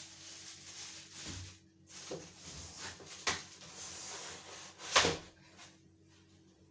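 Unboxing an appliance: packaging rustling, then a few sharp knocks as parts are lifted out and set down, the loudest about five seconds in.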